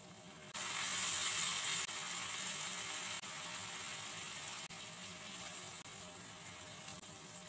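Chicken pieces sizzling in hot oil and sauce in a steel wok. The sizzle cuts in suddenly about half a second in, is loudest for the next second or so, then slowly eases off.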